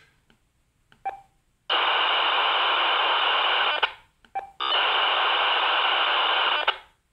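Aegis digital voice from a General Electric M-PA portable, heard through a Baofeng FM handheld's speaker as harsh, steady data noise with a high tone running through it. It comes in two bursts of about two seconds each, after a couple of small clicks.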